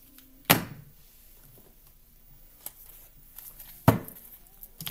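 Two sharp thumps about three and a half seconds apart as a tarot card deck is knocked against a tabletop, with a few faint clicks of the cards between.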